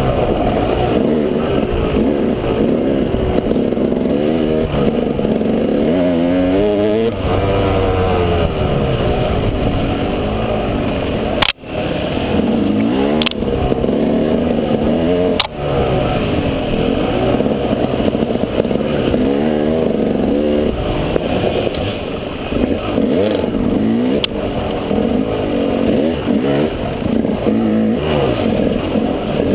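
Dirt bike engine running under a rider, revving up and falling back again and again as the throttle opens and closes, with a couple of sharp knocks partway through.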